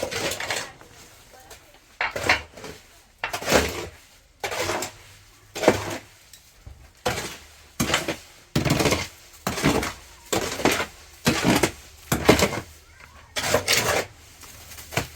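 Repeated knocks and scrapes of hand tools on hard material, roughly one stroke a second, each with a short clattering ring.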